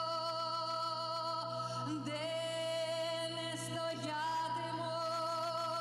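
Slow, solemn singing in long held notes that waver in pitch, the notes changing about every two seconds over a steady low drone.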